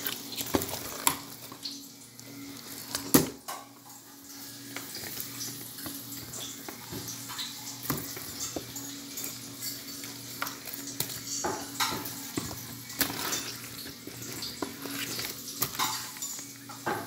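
Irregular clatter of knocks and clinks over a steady low hum, with one sharp knock about three seconds in.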